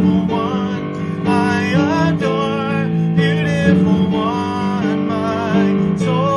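A man singing a slow worship song over acoustic guitar accompaniment.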